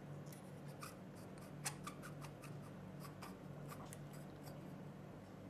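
Small metal parts of an e-cigarette clearomizer clicking and ticking as its threaded base ring is unscrewed and handled: a scatter of light clicks, the loudest a little under two seconds in, over a steady low hum.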